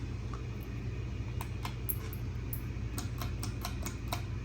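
Sportscast Coca-Cola ceiling fan running on low speed with a steady low hum. A series of light, irregular clicks starts about a third of the way in and runs on to near the end.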